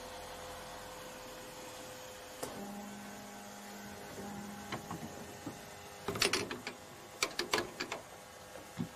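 A small mechanism runs over a steady background hum. About two and a half seconds in, a click starts a low whir that lasts about two seconds. A run of clicks and knocks follows, clustered in the second half.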